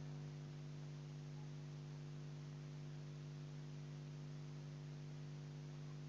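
Low, steady electrical hum with several evenly spaced overtones, over a faint even hiss.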